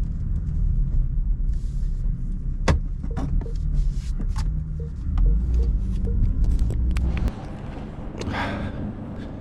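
BMW F82 M4's twin-turbo inline-six running with a low rumble while the car is moved, with scattered clicks over it; the engine cuts off abruptly about seven seconds in.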